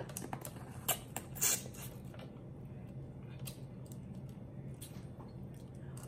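Close-up eating sounds: lips sucking and smacking at small pieces of boiled lobster shell, with scattered sharp clicks, the loudest about a second and a second and a half in, over a faint steady low hum.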